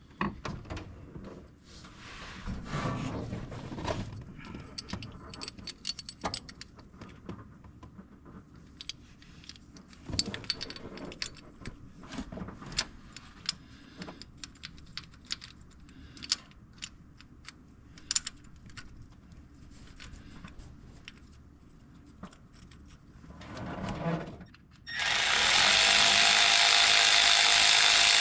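Metal parts and hand tools clinking and tapping as engine valvetrain parts are handled, then a loud steady hiss for about three seconds near the end that cuts off suddenly.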